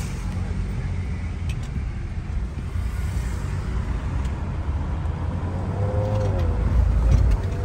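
Car interior while driving through city traffic: a steady low rumble of engine and road noise, swelling louder about seven seconds in.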